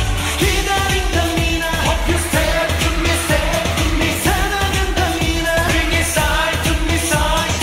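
Male K-pop vocal group singing live into headset microphones over a pop dance track with a steady kick-drum beat.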